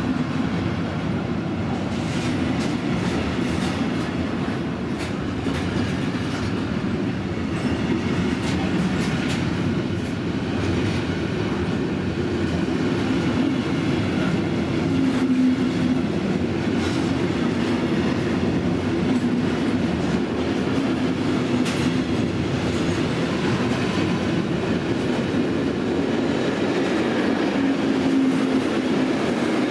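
Freight train of pocket wagons carrying lorry semitrailers rolling past close by: a steady rumble of steel wheels on the rails with scattered clicks as the wagons go by.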